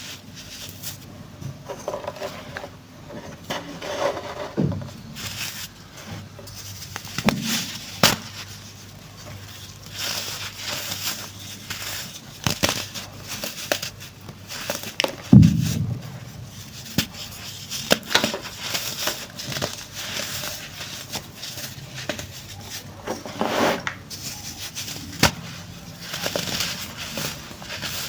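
Chunks of dried baking soda being crushed and crumbled, an irregular run of crunches and crackles, with one louder, deeper thump about halfway through.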